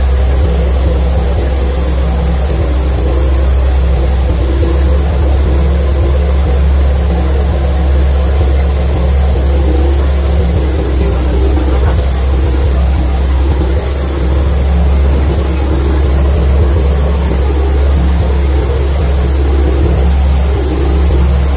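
Boat engine running with a steady low drone while the boat is under way.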